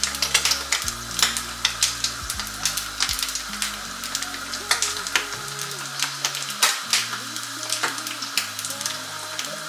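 Eggs frying in butter in a skillet: a steady sizzle with dense, irregular crackling pops.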